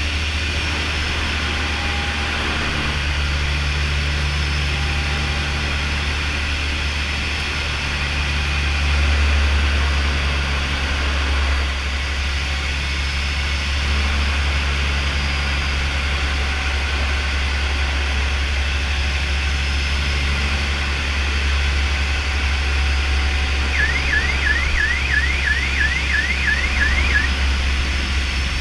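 Canadair CL-415's twin Pratt & Whitney PW123AF turboprops heard from inside the cockpit, a steady low drone on the low approach over the river. Near the end, a warbling cockpit alert tone sounds for about three seconds.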